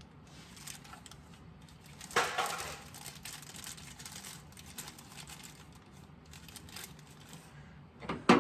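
Packaging of a new ignition points set crinkling and rustling as it is opened, with a louder crackling burst about two seconds in.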